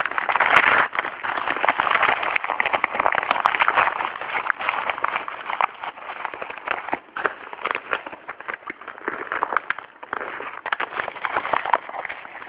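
Shipping packaging being torn open and crinkled by hand: dense, continuous crackling and rustling, loudest in the first few seconds, easing off, then picking up again near the end.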